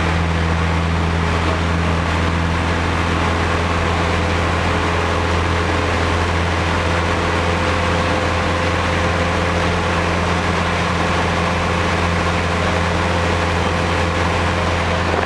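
Piper Tomahawk's four-cylinder Lycoming engine and propeller droning steadily, heard from inside the cockpit, with a steady low hum and a rushing haze above it.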